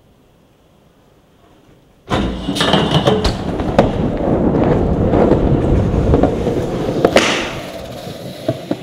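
BMX bike grinding down a steel stair handrail on its pegs: a loud, rough metal scrape that starts suddenly about two seconds in and runs for about five seconds. It ends with a sharp landing hit, then tyres rolling on concrete as it fades.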